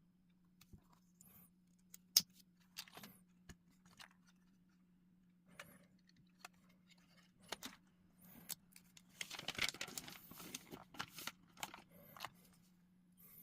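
Plastic LEGO pieces being handled and snapped together: scattered sharp clicks, with a busier stretch of rattling and rustling about nine to eleven seconds in.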